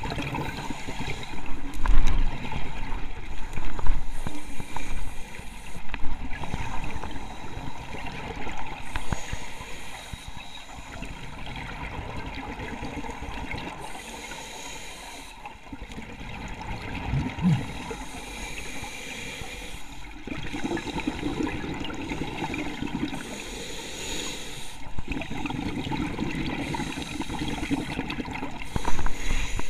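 Scuba diver's breathing heard underwater through the camera: exhaled bubbles from the regulator gurgle past in bursts, with a short lull about every four to five seconds as the diver breathes in.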